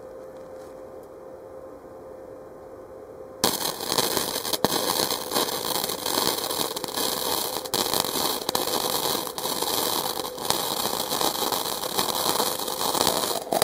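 Flux-core welding arc on thin stainless steel exhaust tubing, from an Easy-Flux 125 inverter welder: a dense, steady crackling sizzle that starts abruptly about three seconds in and runs unbroken as one long bead. The bead burns through the thin pipe wall because the torch was not moving fast enough.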